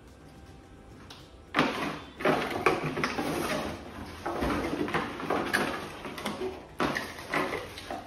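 Cardboard box flaps and packaging rustling and scraping as parts are rummaged out of the box, a dense crackle with many small clicks that starts about a second and a half in.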